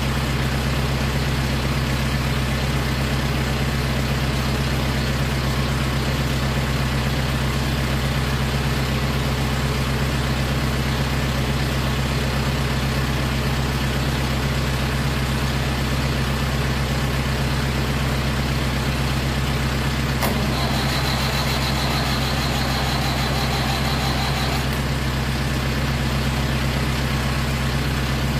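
Massey Ferguson 165 tractor engine idling steadily.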